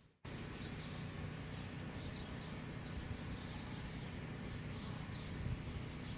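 Outdoor ambience: small birds chirping briefly and high, about once a second, over a steady low rumble.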